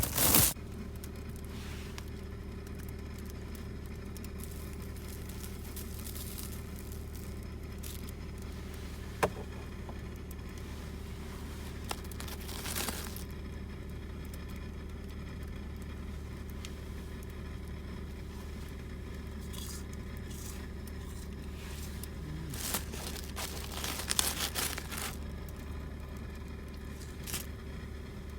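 Steady low machine hum with a few scattered clicks and crinkling rustles on top, a small cluster of them near the end.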